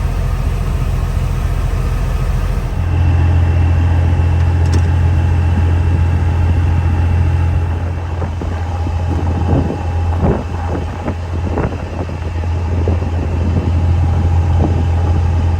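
A vehicle engine running steadily with a heavy low rumble, its speed stepping up about three seconds in. Light knocks and rattles come through in the second half.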